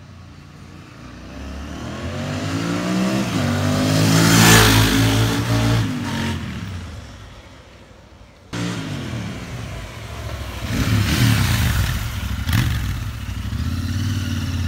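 Royal Enfield Interceptor 650's parallel-twin engine and exhaust as the motorcycle rides past: it swells to a peak about four and a half seconds in, drops in pitch as it goes by, and fades. After a sudden cut, the bike is heard close up at low speed with a few blips of the throttle.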